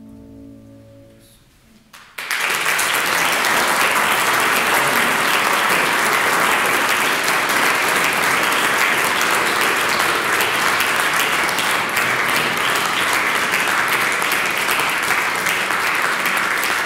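The closing piano chord rings out and fades. About two seconds in, an audience breaks into steady applause that carries on to the end.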